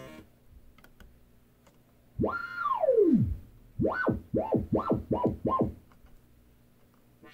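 Korg NTS-1 digital synthesizer playing a single tone that swoops up, holds briefly, then slides all the way down in pitch. It is followed by five short, quick up-and-down chirps in a row.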